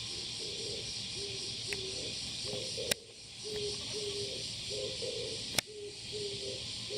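Male Oriental turtle dove cooing, a low hoarse song of short notes repeated in phrases. A steady high insect hiss runs underneath, and two sharp clicks come about three and five and a half seconds in.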